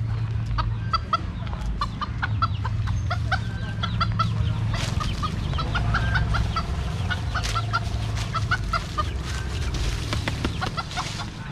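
A rooster clucking in quick, repeated short notes, the agitated calls of a bird being chased, over footsteps crunching on dry leaves.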